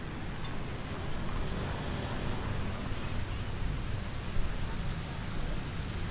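Steady city street ambience: a low traffic rumble under a constant hiss of noise, with no single sound standing out.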